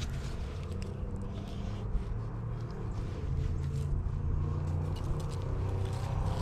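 Steady low rumble of road traffic, swelling about halfway through, with the light ticking crackle of a small wood campfire over it.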